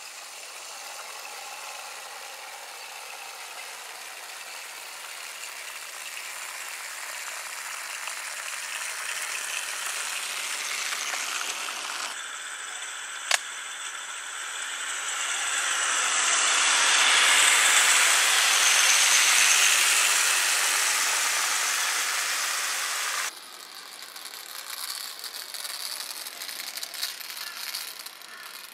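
A 1:24 scale model tram and track-cleaning car running on garden track, their wheels and motor rattling on the rails. The rattle grows louder as they approach, with one sharp click about 13 seconds in, and drops suddenly to a quieter rattle near the end.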